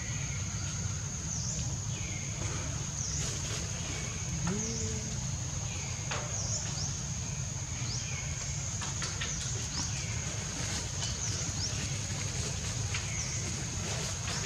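Outdoor ambience: a steady high insect drone with a short downward-sweeping call, likely a bird, repeating about every one and a half seconds, over a low rumble. A brief low rising call sounds once, about four seconds in.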